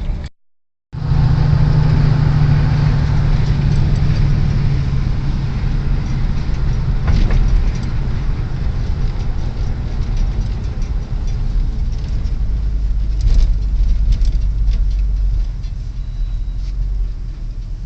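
Car driving: a steady low engine and road rumble, with the sound cutting out completely for about half a second near the start.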